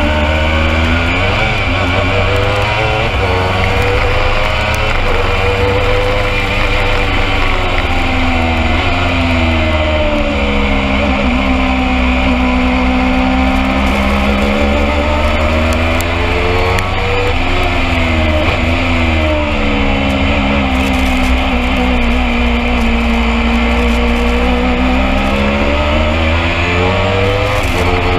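A single-seater racing car's engine, heard onboard. Its note repeatedly sinks and then climbs again in long sweeps as the car slows for corners and accelerates out of them. A steady low rumble runs underneath.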